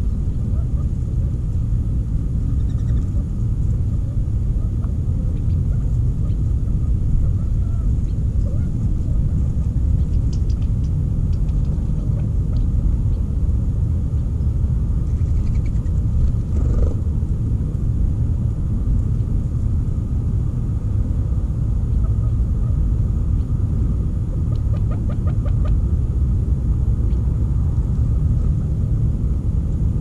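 A steady low rumble throughout, with faint clucking calls from quail a few times.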